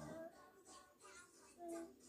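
Faint background music with singing.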